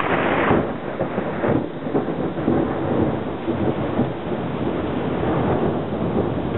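Thunder rumbling continuously through a thunderstorm, with louder surges about half a second and a second and a half in, over the hiss of rain.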